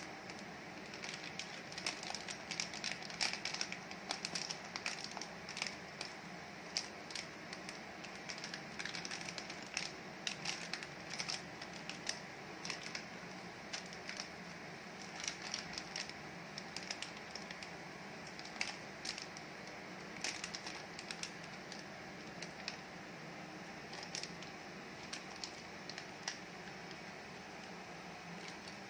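Plastic candy wrappers crinkling as hands pick up, hold and set down the packets: irregular clusters of short crackles and clicks over a steady background hiss.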